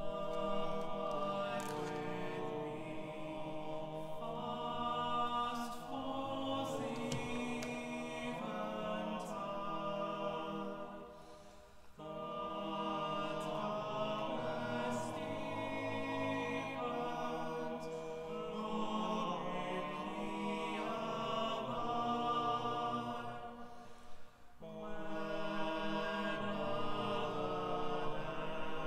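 Choir singing in harmony, in long phrases of about twelve seconds each with a brief break between them.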